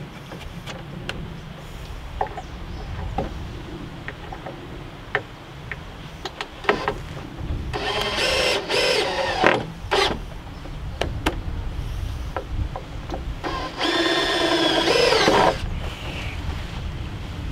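Cordless drill driving screws into wooden joist blocking: two short runs about eight seconds in and a longer run of about two seconds around fourteen seconds in. Between them are scattered knocks and clicks of lumber and the tool being handled.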